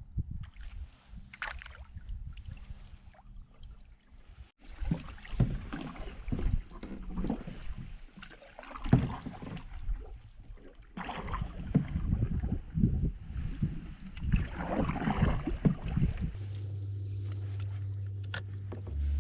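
Canoe paddling: paddle strokes dipping and splashing in the water at an uneven pace, with light knocks on the hull. About three seconds before the end a steady hiss with a low hum takes over.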